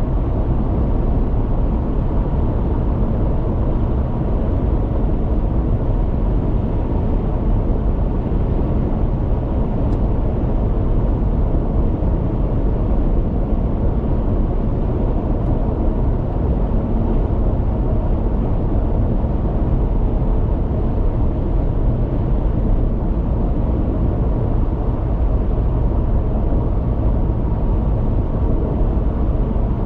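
Car cruising at highway speed: steady tyre and engine noise heard from inside the cabin.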